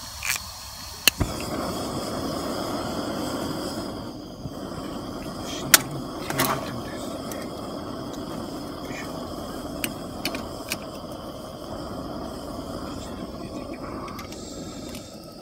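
A camp stove being lit: a sharp click or two, then the burner's flame rushing steadily, with a few light metal clinks as the pot is set on it.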